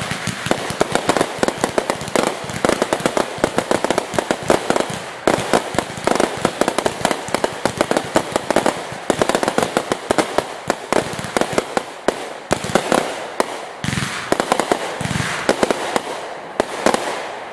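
Fireworks going off in a rapid barrage: dense crackling reports, many a second, with two deeper booms about three-quarters of the way through, easing off near the end.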